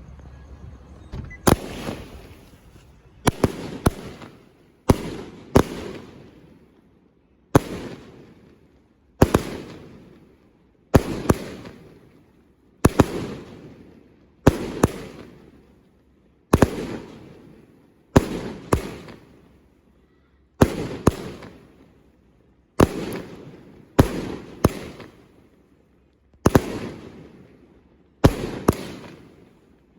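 Unicorn Sneeze 25-shot consumer firework cake firing its aerial shells, which burst in the air. It makes a steady string of sharp bangs every second or two, often two close together, and each bang fades away in a trailing rumble. The first shot comes about a second and a half in.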